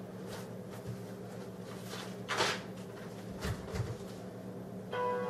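Paper rustling as loose sheets and notebook pages are handled, the loudest rustle about two seconds in, with a couple of soft low thumps a second later, over a steady low hum. Music starts near the end.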